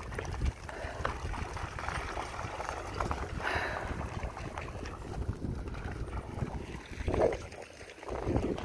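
Wind buffeting the microphone, with water splashing as a pack of dogs runs through shallow water on a tidal flat.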